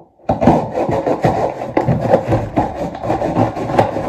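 Cardboard box being cut and torn open: a knife sawing through packing tape and cardboard, with the flaps ripped by hand. It makes a loud, rapid rasping and scraping that starts suddenly just after the beginning.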